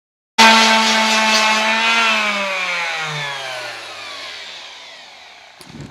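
Electric palm sander motor running at a steady pitch, then switched off about two seconds in and winding down, its whine falling in pitch and fading over the next few seconds.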